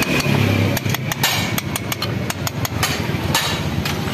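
Hammer tapping a socket used as a drift against a motorbike's metal pump housing: a quick, irregular run of sharp metallic knocks over a steady low rumble.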